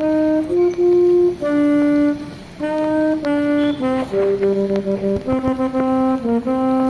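Background music: a single melody of held notes stepping from pitch to pitch, with a brief break about two and a half seconds in.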